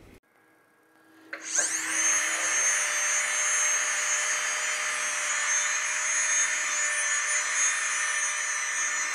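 Dental lab handpiece (micromotor) spinning up about a second in, then running steadily with a high whine while its rubber polishing wheel polishes a sintered milled implant crown.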